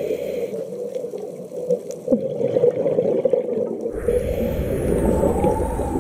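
Underwater sound picked up through a phone's waterproof housing: a steady, muffled rush of water with faint crackling. About four seconds in, a deeper rumble joins it.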